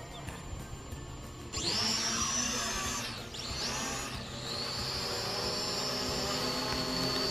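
Small quadcopter drone's electric motors and propellers spinning up at takeoff about a second and a half in, then a high whine that dips in pitch twice before settling steady as it flies overhead.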